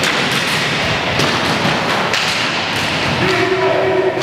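Inline hockey play on a wooden sports-hall floor: a steady rush of skate wheels, with sharp knocks of sticks and puck about four times. A player's long held shout comes near the end.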